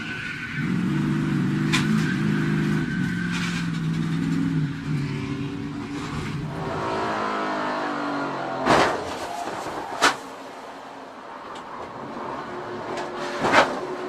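NASCAR stock car V8 running at speed in a crash, heard onboard, then its revs falling away as the car slows. Hard knocks come about nine and ten seconds in, and again near the end.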